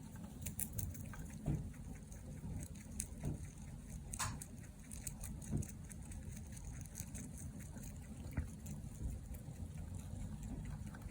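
A Mini Rex rabbit snoring softly while it rests: low breaths recurring about every second and a half, with small scattered clicks.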